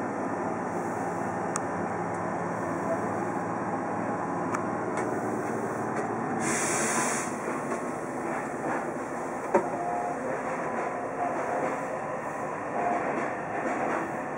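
Steady running noise of a train, heard inside the front observation cabin of a Meitetsu Panorama Super. A short hiss of air comes about six and a half seconds in, and a single sharp click about three seconds later.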